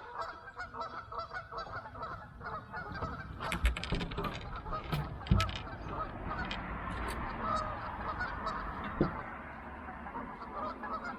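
A flock of geese honking continuously, many overlapping short calls, with a few dull knocks about a third and halfway through.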